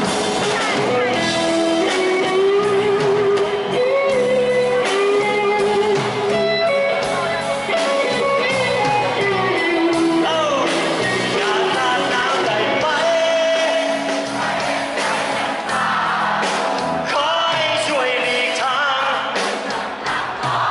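Live rock band playing a Thai pop-rock song, with electric bass and guitar under a male lead singer, amplified in a large hall.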